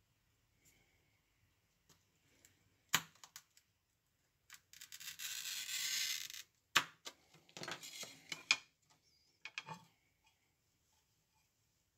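Oiled wheel glass cutter scoring a straight line across float glass along a straight edge: a hissing rasp about two seconds long near the middle. Sharp clicks and short rasps come before and after it.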